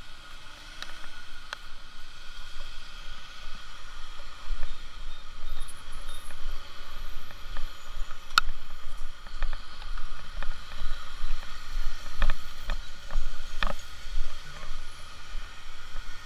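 Wind buffeting the microphone in uneven low rumbling gusts, over a steady hum of travel noise, with a few sharp clicks.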